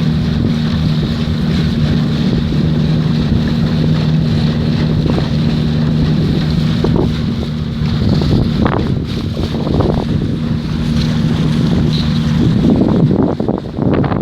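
A boat motor running at a steady drone, with wind buffeting the microphone. The engine's steady note drops away near the end.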